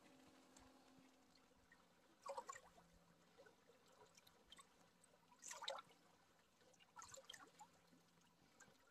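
Near silence, with faint water lapping and trickling at a rocky lake shore; three brief splashy patches stand out, about two, five and a half and seven seconds in.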